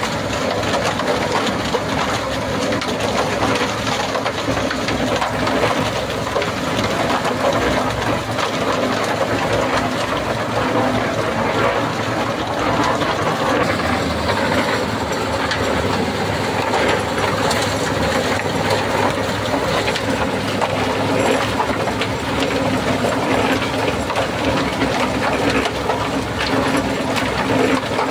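Concrete mixer running steadily while mixing cement for a foundation pour: a continuous machine sound from its motor and turning drum.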